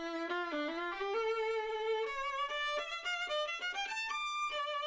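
Solo violin playing a single melodic line of bowed notes with vibrato, climbing step by step from low notes to higher ones.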